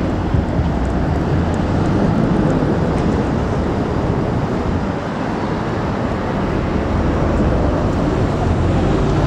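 Class 222 Meridian diesel-electric multiple unit approaching round a curve, its underfloor diesel engines and running gear giving a steady low rumble.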